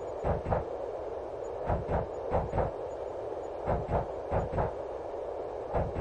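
Train running over jointed track, heard inside a carriage: a steady rumble with double knocks, clickety-clack, as the wheels cross rail joints, about one pair a second.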